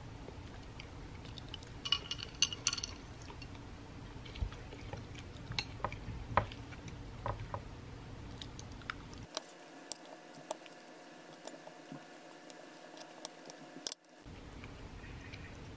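Close-up eating sounds: chewing a potato and bacon pancake, with small clicks and clinks of metal chopsticks against a ceramic plate.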